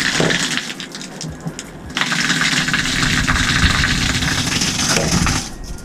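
Outdoor shower head spraying water, a steady hissing rush that eases off about a second in and again near the end. The head has just been cleared of the pipe dope that was choking its flow.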